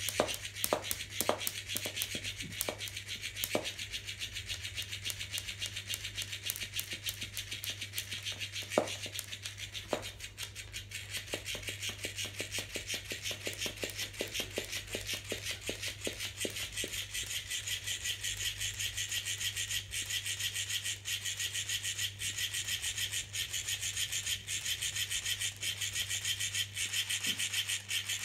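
An electric flopping fish cat toy running, its tail flapping in a fast, even rhythm of scraping strokes against a wooden floor. A few sharp knocks come in the first few seconds and again around nine and ten seconds in.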